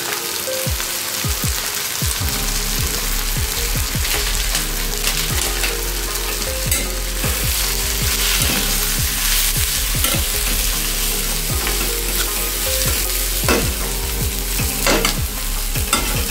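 Chopped potatoes, onions and tomatoes sizzling in oil in a steel kadai while a flat steel spatula stirs and scrapes the pan in irregular strokes, working in freshly added chilli powder and turmeric.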